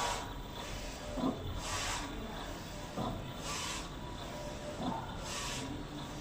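Direct-to-garment (DTG) printer running, its print-head carriage sweeping back and forth with a swish about every two seconds over a low steady hum.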